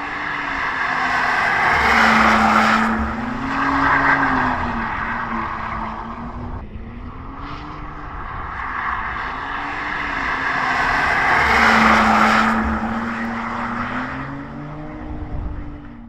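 BMW M2 G87's 3.0-litre twin-turbo inline-six with its exhaust, its note rising and falling as the car drifts, with tyre noise swelling twice. The sound cuts off suddenly at the end.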